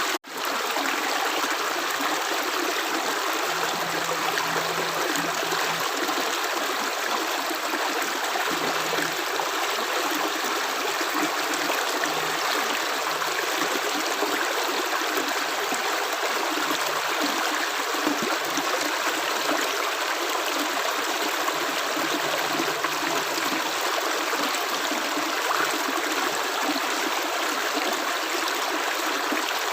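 Steady running water of a stream, an even rushing flow with no separate drops heard. It cuts out for an instant just after the start, then carries on unchanged.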